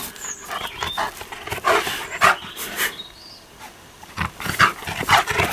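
Bernese mountain dog making excited breathy huffs, a rapid irregular run of short sounds.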